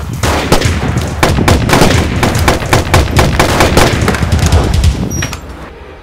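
Sustained rapid automatic gunfire, several shots a second, over a low rumble, fading out near the end.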